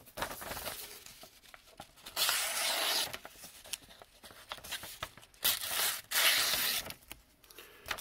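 A sheet of paper rustling and crinkling as it is handled, in two main bursts, about two seconds in and about six seconds in.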